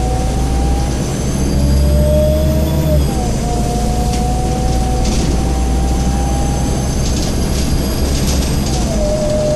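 Scania N230UD double-decker bus under way, heard from the upper deck. Its diesel engine runs with a whine that slowly rises in pitch, drops at a gear change about three seconds in, rises again and drops once more near the end. Light rattles come and go in the second half.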